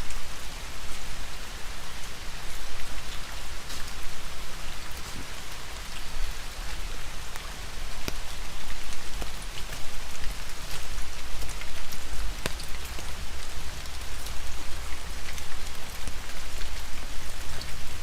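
Steady rain, with many sharp drop taps on an umbrella held close over the microphone and a low rumble underneath.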